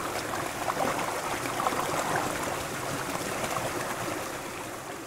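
Shallow river rapids: clear water rushing and splashing over rocks in a steady rush, easing off slightly near the end.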